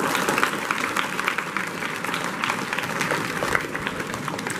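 An audience applauding: many hands clapping together in a dense patter that eases off slightly toward the end.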